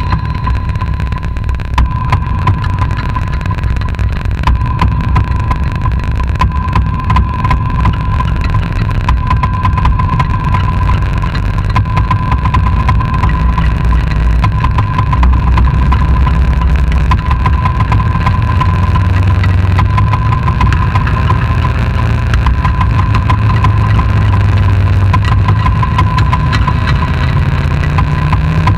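Experimental electronic noise music: a dense, steady low rumble like an idling engine, with a constant thin high tone and crackling clicks over it.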